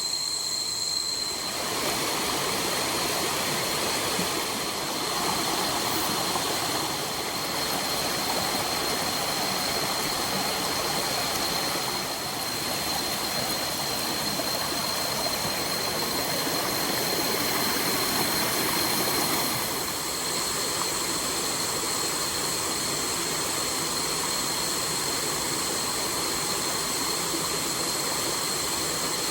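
Waterfall rushing steadily, its sound filling in about a second and a half in, with a thin steady high tone over it.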